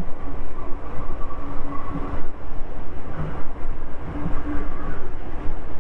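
Motorcycle riding along a road: wind buffeting the rider's microphone over a steady engine hum.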